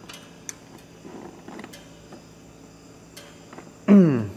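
A wrench clicking lightly against the jam nut of a tractor loader's hydraulic pressure relief valve as it is tightened down: a few scattered metallic ticks over a steady low hum. Near the end comes one short, loud vocal sound from a man, falling in pitch.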